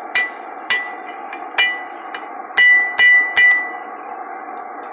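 Hand hammer striking a steel alignment drift set in a punched slot in a hot steel bar on an anvil, opening the slot. Six ringing metal-on-metal blows, the last three quicker and loudest.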